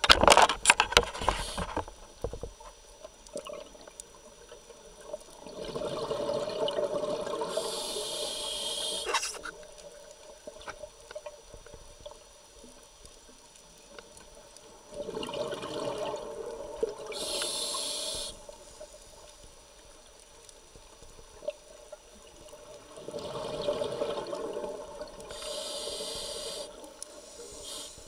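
Scuba diver breathing through a regulator underwater: three slow breaths, about nine seconds apart, each a swell of rushing, bubbling air with a hiss near its end. A loud crackling burst of bubbles fills the first two seconds.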